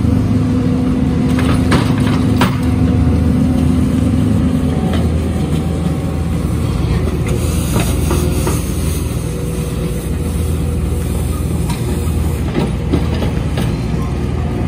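Skid steer loader's engine running while it works a brush attachment, with scattered knocks and clanks. A steady hum in the drone drops out about five seconds in.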